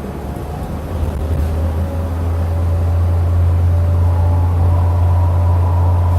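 Hyundai Aerotown bus engine and drivetrain running, growing louder over the first two to three seconds and then holding steady, with a deep hum and a faint higher whine.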